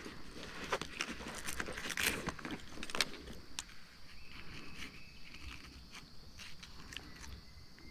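Sharp clicks and metallic rattles from a jig hook and pliers as a smallmouth bass is handled and unhooked, most frequent in the first three seconds and thinning out after.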